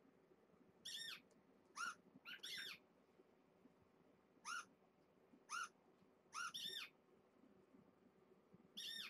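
Short, high squeaks from a cat-game app on an iPad, about nine in all, coming every second or so and sometimes in quick pairs.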